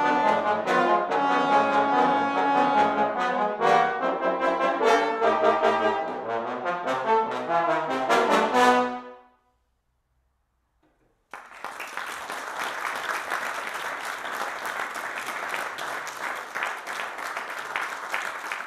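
Trombone quartet playing the closing bars of a piece, ending about nine seconds in. After two seconds of silence, audience applause follows.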